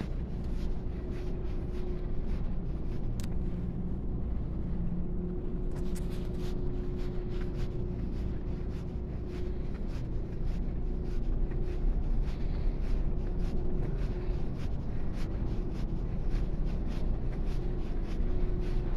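Footsteps of someone walking, regular clicks from about six seconds in, over a steady low hum with a faint held tone.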